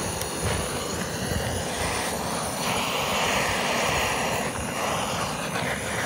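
Handheld butane torch burning with a steady rushing hiss as it lights charcoal briquettes in a stainless-steel fire pit.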